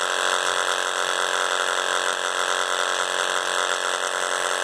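Homemade vibrating seeder running with a steady buzz, its vibration shaking a plastic half-pipe trough so carrot seeds trickle out at a controlled pace.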